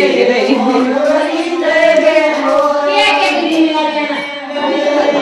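Several women singing a traditional wedding folk song together, high voices without instruments.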